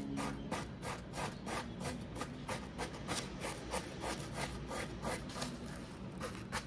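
Metal spoon scraping and grinding frozen guriguri ice treat in a plastic cup, a rhythmic crunchy scratching at about three strokes a second as the frozen block is broken into shaved ice.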